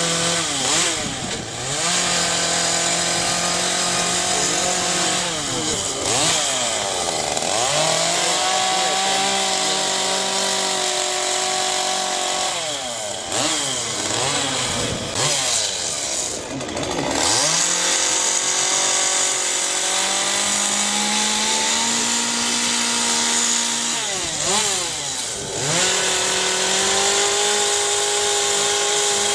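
Petrol chainsaw running at high revs. Every few seconds the revs drop away and climb back.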